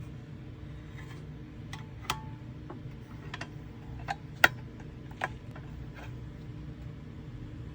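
Irregular light clicks and taps, about seven of them, the sharpest about four and a half seconds in, over a steady low hum.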